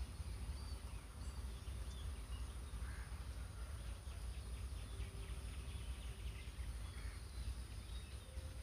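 Quiet background noise: a low steady hum and a thin steady high whine, with a few faint chirps and light ticks scattered through it.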